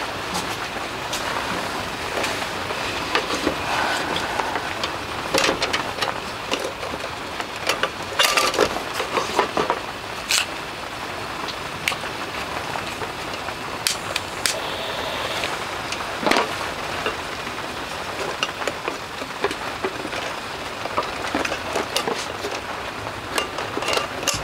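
Steady rain on a polycotton tent roof, with a sharp, louder tap or click every few seconds.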